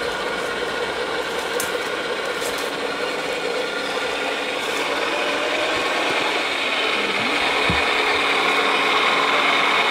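Radio-controlled model wheel loader's electric drive motor and gearbox whining steadily as it drives, getting louder as it comes closer.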